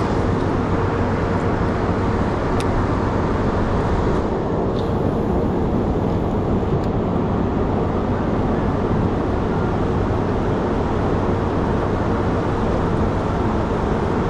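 Boat's outboard motor running steadily: a constant drone with a faint, even hum under a rush of noise.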